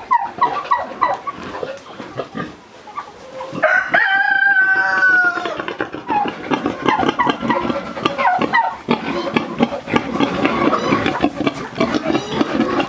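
Chickens clucking, with a rooster crowing once, a long call about three and a half seconds in.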